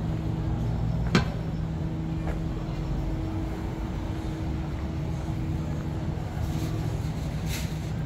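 Busy city street at night: a steady low hum of vehicle engines from nearby traffic, with a sharp click about a second in and a short hiss near the end.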